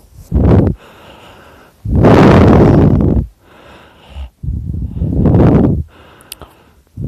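A sleeping man snoring loudly: a short snort near the start, then two long, rough snores starting about two and four and a half seconds in, with quiet gaps between breaths.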